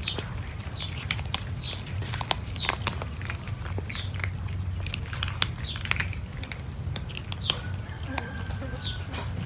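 Several cats crunching dry kibble off a wooden plank: a run of small crunches and clicks throughout. Short high chirps come every second or so over it.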